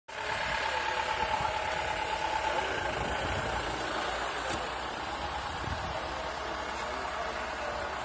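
A car engine idling steadily close by, with a thin steady tone over it for about the first two and a half seconds.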